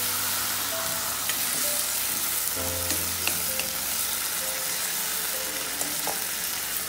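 Pieces of goat meat sizzling in a hot frying pan and stirred with a wooden spoon. Partway through, water goes into the pan and the meat keeps sizzling in the liquid.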